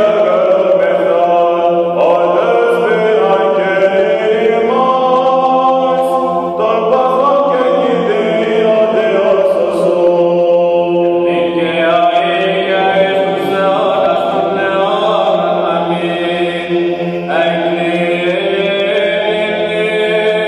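Greek Orthodox Byzantine chant: men's voices sing a slow, ornamented melody in phrases over a steady held drone note (the ison).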